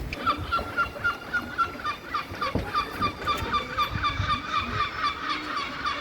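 A gull calling in a rapid series of short, clipped notes, about four a second, with fainter lower calls from other birds underneath.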